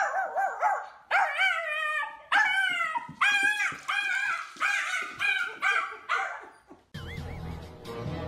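Small pug-type dog giving a run of about ten high, wavering yelps and howls, each bending up and down in pitch and growing fainter toward the end. The calls stop about seven seconds in and give way to a steady low hum.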